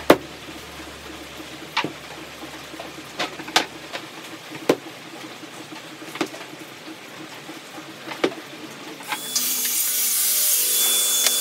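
Laminated plywood panels set down one by one on a stack, each giving a sharp wooden clack, about seven in all. About nine seconds in, a handheld circular saw starts and cuts into a laminated panel, much louder and steady.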